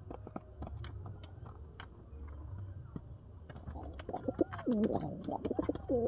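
Domestic pigeons cooing. About three and a half seconds in, a run of loud, wavering coos begins and repeats; before that there are only scattered light clicks.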